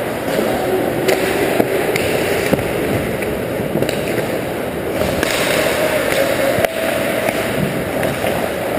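Ice hockey play heard at rink level: skate blades scraping and carving the ice in a steady rush, broken by several sharp clacks of sticks and puck.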